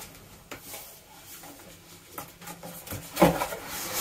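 Cardboard box lid being worked up and slid off its snug base: faint rubbing with a few light taps, then a louder scrape of cardboard about three seconds in.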